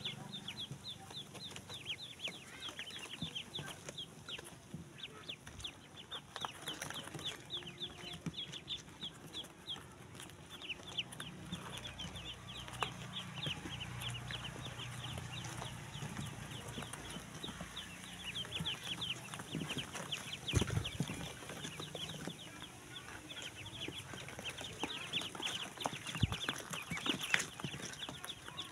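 A flock of ducklings peeping constantly, many short, falling high peeps overlapping one another.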